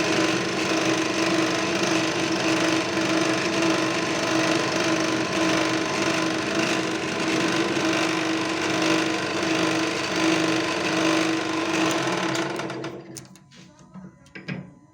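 A power tool motor runs steadily under load with a strong steady hum, then stops about thirteen seconds in. A few light clicks follow.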